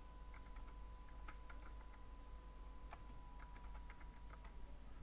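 Computer keyboard keys clicking as a search query is typed, in quick irregular runs of keystrokes, faint, over a faint steady tone.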